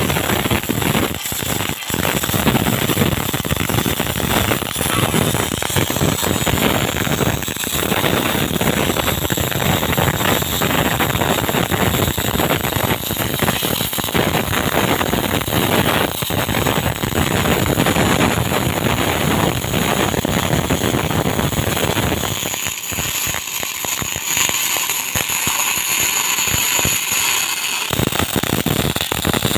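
MIG welding arc crackling steadily with a dense, fast sizzle. For a few seconds near the end, the low crackle drops away and a hiss remains.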